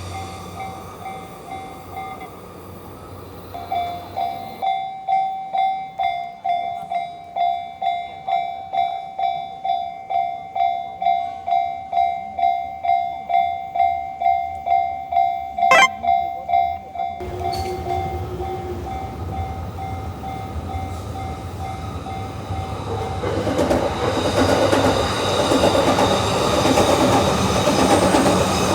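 Japanese level-crossing alarm ringing, an electronic bell tone repeating about twice a second. Near the end an electric train passes over the crossing, its running noise rising over the bell.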